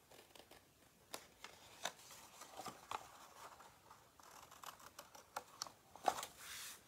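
Small scissors snipping through card, several short sharp snips a second or so apart, with the card rustling as it is handled near the end.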